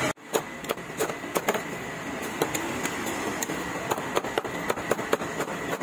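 Irregular sharp clicks and knocks, a few a second, over a steady background noise.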